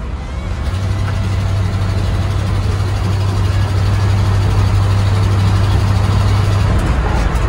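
1965 International pickup cruising at highway speed, heard from inside the cab: engine and exhaust drone mixed with wind and road noise. A steady low hum sets in about a second in and drops away near the end.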